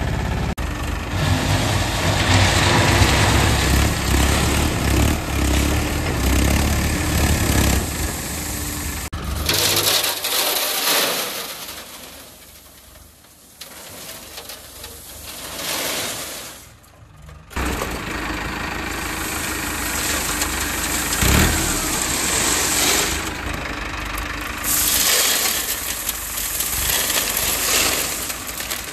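Tractor diesel engines running while a front-end loader tips crushed stone into a steel tractor trolley. The sound drops away for several seconds about a third of the way in, then comes back loud.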